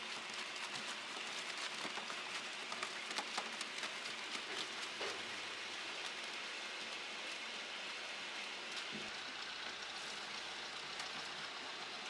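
Pomegranate-processing machine running steadily while whole pomegranates and loose arils patter and clatter through it, the crackle of falling fruit thickest in the first few seconds and thinning after about five seconds.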